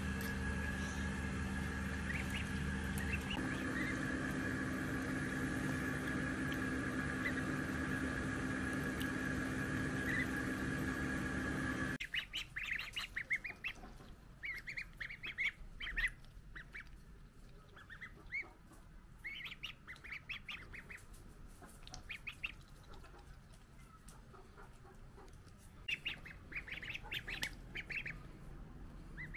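Three-week-old ducklings calling in short, high peeps, often in quick runs. For the first twelve seconds a steady hum with a thin high whine lies over them, then it cuts off suddenly and the peeps stand out clearly.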